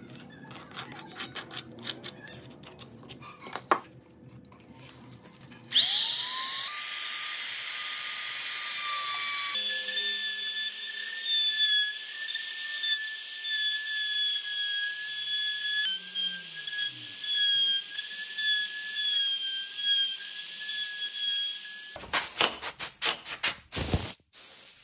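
Handheld trim router switching on about six seconds in, spinning up with a rising whine, then running steadily while it cuts a shallow recess into a segmented wooden piece. It stops a little before the end, followed by a flurry of short sharp noises.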